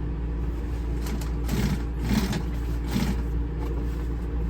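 Industrial walking-foot upholstery sewing machine running steadily, with a few short louder bursts between about one and three seconds in.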